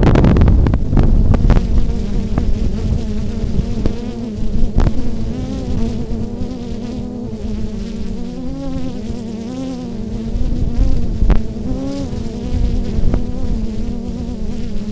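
DJI F450 quadcopter's electric motors and propellers buzzing in flight, heard close up from a camera on the frame. The pitch wobbles up and down, and there is wind rumble on the microphone, heaviest at the start.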